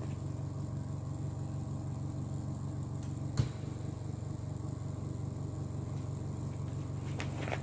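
Steady low hum, like a motor or appliance running, with a single sharp click about three and a half seconds in.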